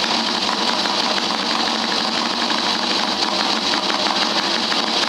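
Vintage auto race motorcycle engine running at a steady idle, with rapid, even firing.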